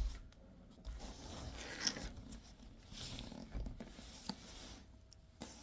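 Cardboard boxes and packaging being handled: intermittent scraping and rustling, with a few light knocks.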